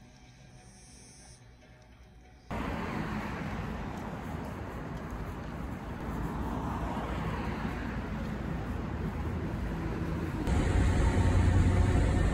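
Steady outdoor street noise with passing traffic. Near the end it gives way to the louder low rumble of an express bus heard from inside its cabin.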